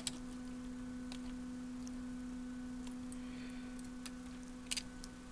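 A steady low hum, one unchanging tone with fainter higher overtones, under a few faint light clicks and taps from small plastic-and-metal CD mechanism parts being handled.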